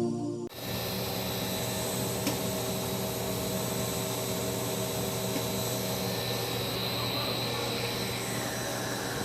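Snack extrusion production line machinery running: a steady mechanical hum and hiss with a few constant whining tones. It comes in abruptly about half a second in, as the intro music stops.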